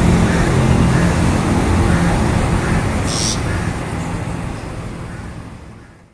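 Steady low rumble of road traffic, with one short high burst about three seconds in; the sound fades out at the end.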